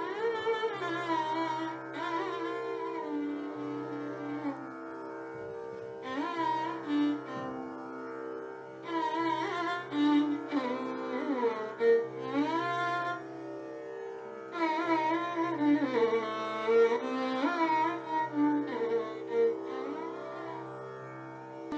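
Background music in Carnatic style: a sliding, ornamented melody over a steady drone.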